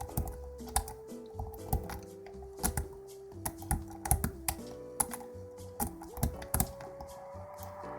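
Irregular clicking and scraping of a W rake worked in and out of a Basta 5-pin euro cylinder, the pins clicking against the rake as it is held in a false set and fails to open. Background music with a held note that steps in pitch plays underneath.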